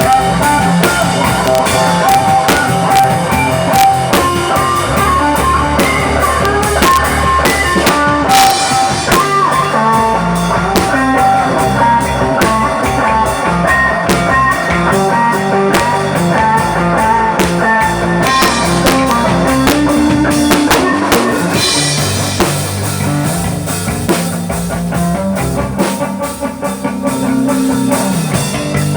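A rock band playing an instrumental passage: guitar over a drum kit, loud and steady throughout.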